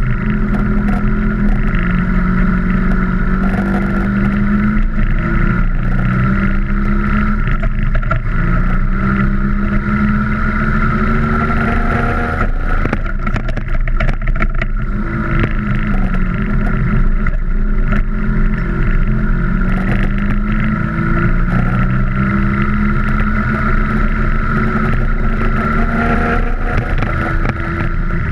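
Vespa scooter's two-stroke engine pulling hard off-road, its pitch climbing and dropping again and again as the rider works the throttle and gears. Wind buffets the microphone, and the scooter rattles over rough ground around the middle.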